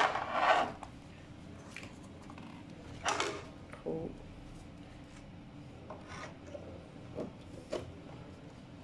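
Kukirin G3 electric scooter's rubber-topped deck cover plate being handled and fitted over the battery bay: short scrapes and knocks of the plate against the frame. The loudest scrape comes right at the start, another about three seconds in, then a few lighter taps and rubs.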